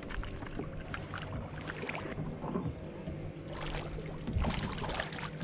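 A carp shot with a bowfishing arrow splashes and thrashes at the surface beside the kayak as it is hauled in on the line, with a few knocks of gear against the hull.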